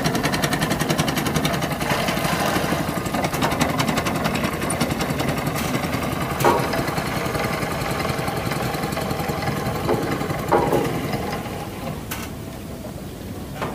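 A small engine running steadily with a fast, even chugging beat, fading near the end.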